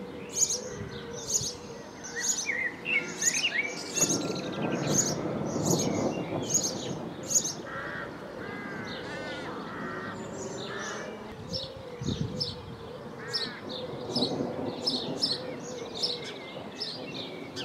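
Birds chirping: a short high chirp repeated about twice a second, with other birds warbling over it now and then. Under them, distant thunder rumbles low, swelling about four seconds in and again near the end.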